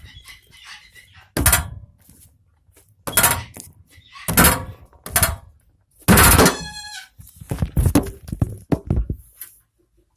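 Slime being slapped and squished by hand: a run of loud, sudden smacks about a second apart. One drawn-out smack past the middle ends in a falling squeak.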